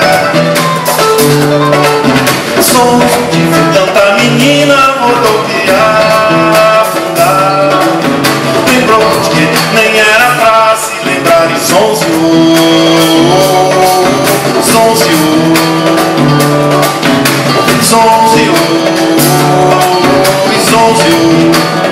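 Live Brazilian song played by a small band: acoustic guitar and electric bass over a steady percussive beat, with a male voice singing the melody.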